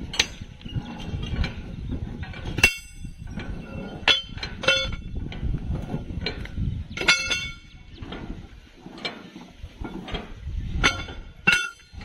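Sharp metallic clangs of steel tools striking a steel rail and its fish plates at a rail joint, several irregular strikes that each ring briefly, over a low rumble.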